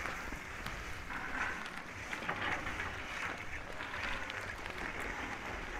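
Steady rushing noise of skiing downhill: skis sliding over hard, icy snow, mixed with wind across the microphone, with a few faint ticks.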